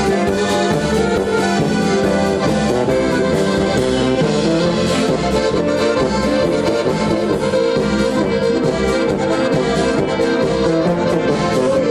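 Live band music led by accordions, a button box (diatonic accordion) and a piano accordion, playing a tune together over archtop guitar and drums with a steady beat.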